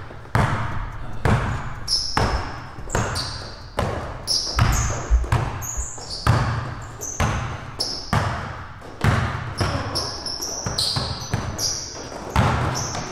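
Basketball dribbled hard on a hardwood court, bouncing about once or twice a second, with sneakers squeaking sharply on the floor between bounces.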